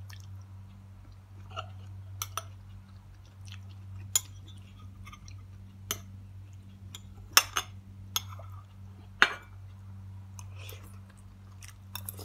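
Metal spoon clinking against a glass bowl about nine times at irregular intervals, with mouth-chewing sounds in between, over a steady low hum.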